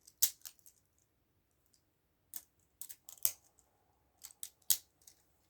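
Spinning Beyblade Burst tops clashing in a plastic stadium: about eight short, sharp plastic clicks of hits, irregularly spaced with quiet gaps between.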